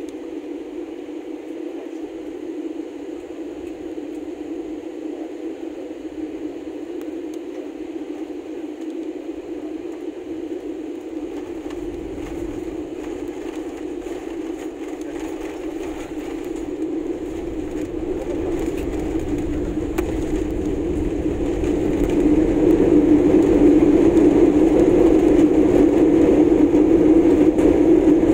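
Airbus A321-200 cabin noise from over the right wing: a steady engine drone on final approach, then a low rumble joining about twelve seconds in as the wheels touch down and roll. From about eighteen seconds the engine sound rises and grows loud as reverse thrust is applied during the landing rollout.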